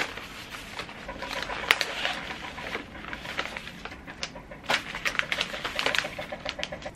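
Paper bouquet wrapping rustling and crinkling as it is unwrapped and pulled away from the flower stems, with many small irregular crackles.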